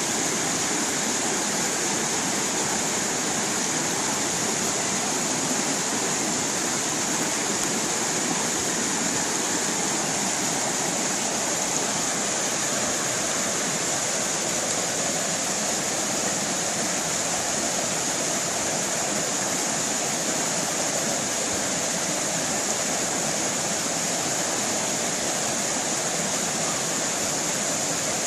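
A small stream of water running and splashing over rocks, a steady, even rush with no pauses.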